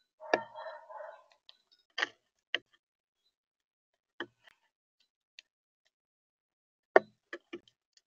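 A bird pecking seed at a feeder right beside the camera: scattered sharp taps, three in quick succession near the end. A short scratchy rustle about a second long comes with the first tap.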